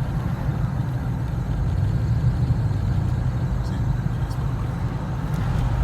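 A motor vehicle running steadily: a continuous low rumble of engine and road noise with no distinct squeal or knock standing out.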